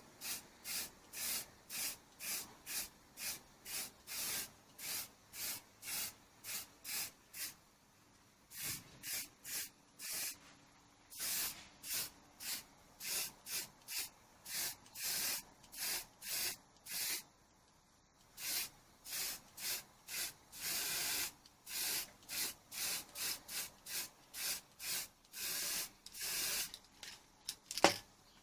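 Rapid back-and-forth scrubbing by hand, about two strokes a second with a couple of short pauses, cleaning a grimy Honda XL100S part.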